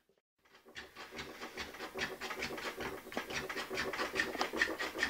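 Close handling noise from a camera and its wires: after a moment of silence, a run of small clicks and rustles, several a second.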